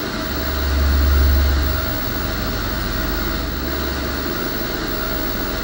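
Television static hiss over a low rumble that swells during the first two seconds and then eases.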